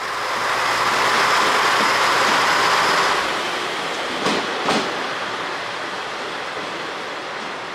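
JR East diesel railcar train rolling past and moving away. A loud rush of running noise lasts the first three seconds, two sharp clacks of wheels over a rail joint come about four and a half seconds in, and then a quieter, steady running noise follows as it recedes.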